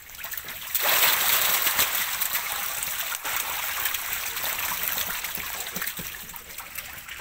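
Water splashing and churning as a dense crowd of catfish thrash in shallow water. It starts suddenly about a second in, then slowly dies down.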